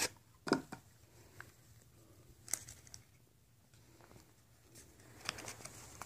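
Pokémon trading-card booster pack and cards being handled: a few short crinkles and taps of foil wrapper and card stock, the loudest at the start and about half a second in, with soft handling in between.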